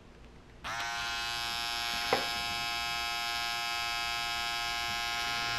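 Philips Norelco Bodygroom BG2030 trimmer's small electric motor switching on under a second in, gliding briefly up in pitch, then running at a steady whine on its newly fitted battery pack, showing the repair has brought it back to life. A single light tick about two seconds in.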